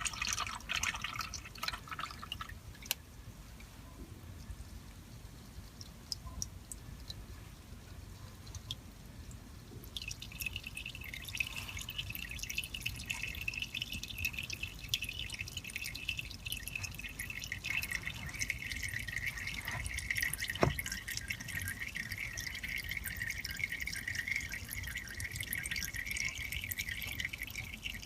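Old engine oil draining from a Honda Accord 2.4L four-cylinder's oil pan drain hole into a drain pan: a stream of liquid splashing and trickling into the oil below. The sound grows louder and steadier about ten seconds in.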